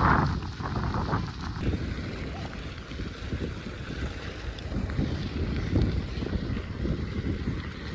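Wind buffeting a phone microphone during a bicycle ride: an uneven, low rumbling noise.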